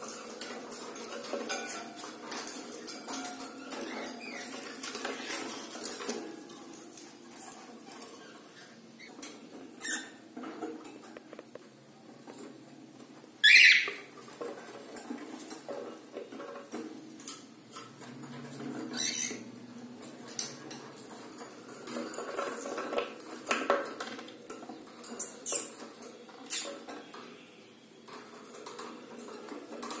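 Cockatiels scratching and tapping with claws and beaks at a wooden nest box and wire cage floor: a busy run of small clicks and scratches, with a few short chirps, the loudest about halfway through.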